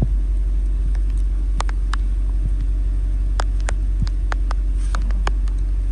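Truck engine running with a steady low rumble, with scattered light clicks over it.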